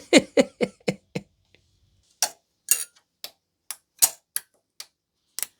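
Sharp clicks and taps from an electric guitar and its amp being handled, quick at first, then slower and scattered. A low amplifier hum runs underneath and cuts out about two seconds in.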